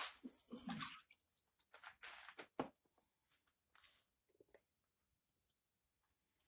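Intermittent short wet scrubbing and sloshing noises with small clicks as carburetor parts are cleaned, busiest in the first few seconds and then thinning to a few light taps.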